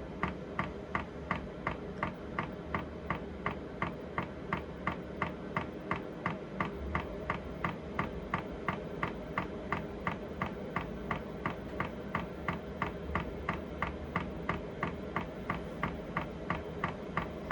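Chinese diesel heater's fuel dosing pump ticking steadily, about two and a half clicks a second, over the steady hum of the heater's fan. The quickened pump rate is the heater firing up during its start-up.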